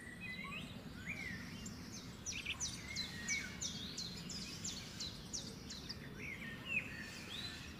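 Birds chirping in the morning: a run of about ten quick, high, falling chirps in the middle, with scattered single calls before and after, over a faint steady low background hum.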